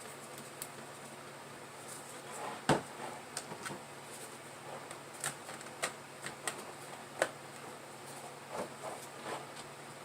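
Scattered light clicks and taps of small objects being handled, the sharpest click about two and a half seconds in, over a faint steady hum and hiss.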